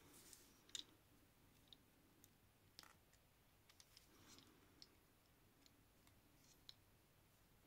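Faint, irregular clicks of a plastic Transformers Dragstrip figure being handled, its arm joints clicking as they are moved into new poses; about a dozen small clicks, none loud.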